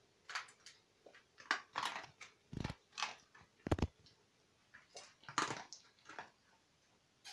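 A cat chewing and biting: a string of soft, irregular crunches about every half second, with two duller low thumps a few seconds in.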